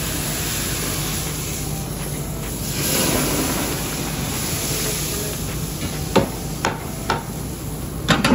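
Hot tadka poured from a pan into a large stockpot of simmering sambar, hissing and sizzling in a steady rush that swells about three seconds in. Several sharp metal clinks of cookware follow in the last couple of seconds.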